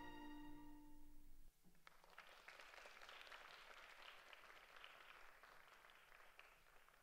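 Classical ballet music ends on a held orchestral chord that cuts off about a second and a half in. Faint audience applause follows, slowly fading toward the end.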